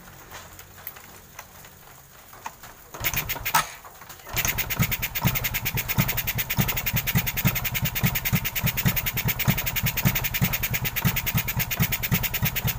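A few light clicks, then a small single-cylinder motorcycle engine cranks and catches about four seconds in and settles into a steady, evenly pulsing idle. It is the first start on a freshly fitted 28 mm SWR flatslide carburettor on a stock 125 cc engine, the jet needle clipped at pin 2 and not yet tuned.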